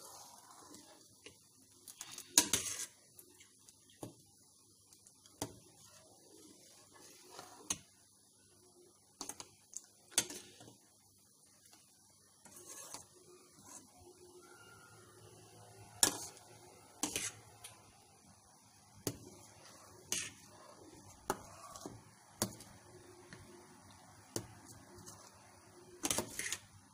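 Metal spoon knocking and scraping against the side of a steel pan while stirring curdled milk. Sharp clinks come irregularly, a few seconds apart.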